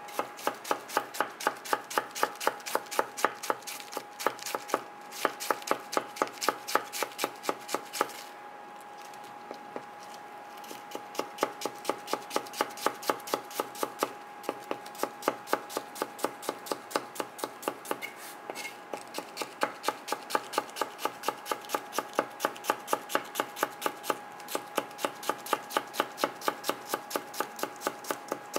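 Kitchen knife rapidly slicing red cabbage into fine shreds, the blade tapping the cutting board in an even rhythm of about four cuts a second. The cutting pauses for a couple of seconds about eight seconds in.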